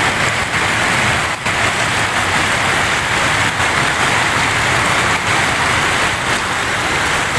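Fast, shallow river water rushing steadily over rocks close to the microphone, with a few faint knocks.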